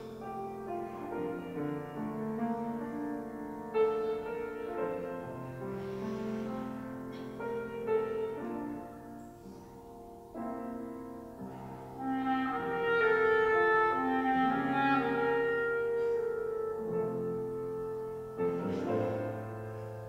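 Clarinet and grand piano playing a slow sacred piece. The piano plays alone at first; about halfway in the clarinet takes up the melody in long held notes over the piano.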